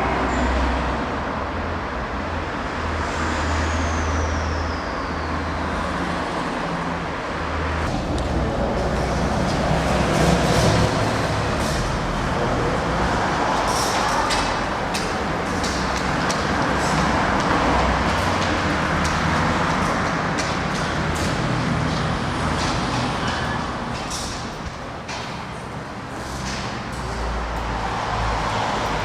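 Berlin commuter train running on its track: a steady rumble with scattered clicks of the wheels over the rails, and a high whine that falls in pitch about three seconds in.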